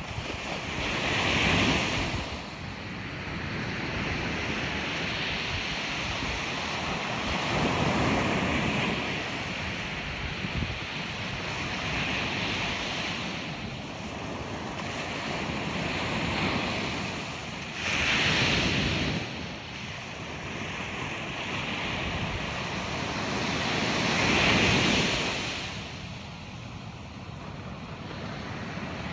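Ocean surf breaking on a beach: a continuous wash of water that swells into a louder crashing wave about five times, several seconds apart, each one then washing back down.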